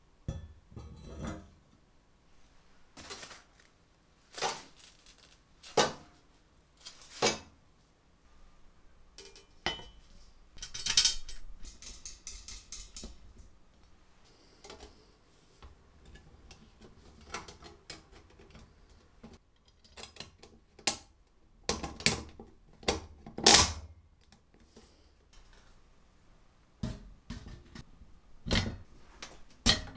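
Metal parts of an 1890s potato peeler clinking and knocking together as it is reassembled by hand: the steel shaft, the perforated grating disc and drum, and the painted frame. Scattered single knocks and clinks, with a brief rattling scrape about eleven seconds in and the loudest knocks later on.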